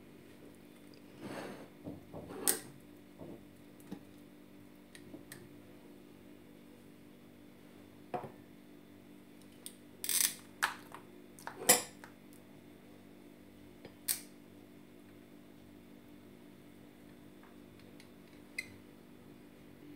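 Plastic ice-cream scoop and glass dessert cups knocking and clinking as frozen ice cream is scooped out and served: about a dozen scattered sharp knocks, the loudest a little past the middle, over a faint steady hum.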